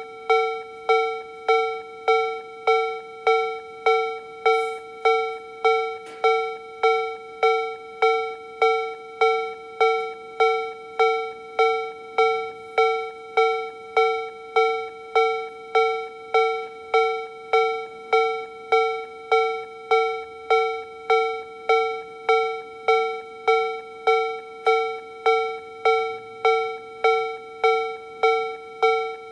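Electronic Japanese railway level crossing alarm from a Toho Denki TA3-VR crossing alarm sound generator, ringing the slow-tempo Tobu B/C tone. Each strike is a bell-like clang with a fast decay, repeating evenly about one and a half times a second.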